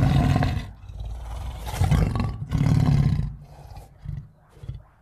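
Monster roar sound effect made for a Godzilla-type creature: deep, rasping roars in three loud bursts, at the start, about two seconds in and near three seconds, dying away to a low rumble over the last second or so.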